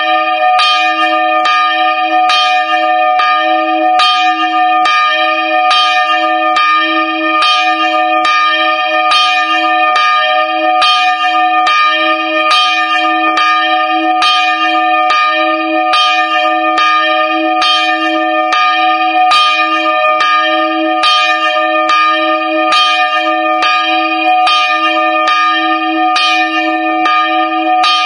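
Single swinging church bell, 64.5 cm across and cast in 1779, ringing at full swing with its clapper striking at an even pace, a bit more than once a second. Each stroke's ring carries on under the next, heard from right beside the bell in its frame.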